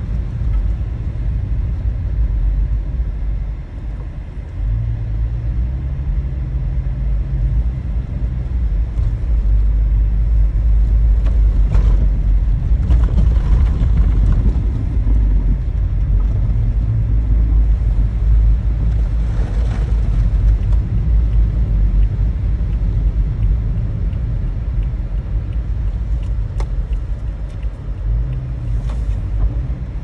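Steady low rumble of a car's engine and tyres on a slushy, snow-covered road, heard from inside the cabin, with a few short hissing swells now and then.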